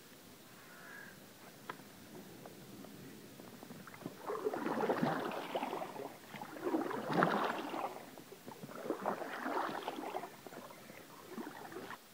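Canoe paddle strokes in the water: three swishing splashes about two seconds apart, starting about four seconds in, and a fainter fourth near the end.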